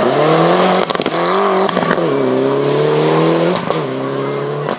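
Rally car engine accelerating hard through the gears. Its pitch climbs, then drops sharply at each upshift, three times, with short sharp crackles at the shifts.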